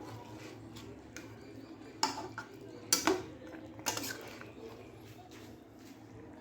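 Metal clinking against a cooking pot: three sharp knocks about two, three and four seconds in, over a low steady hum.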